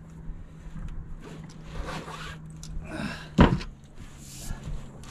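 Handling noises on a fishing boat as a landed catfish is unhooked and the rod cleared: rustling and scraping, with one sharp knock about three and a half seconds in, over a steady low hum.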